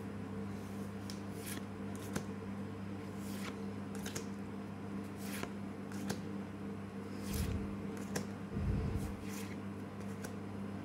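Pokémon trading cards being slid one by one off the front of a hand-held stack, a short paper flick of card on card about once a second, over a steady low hum. A couple of brief dull bumps come about two-thirds of the way through.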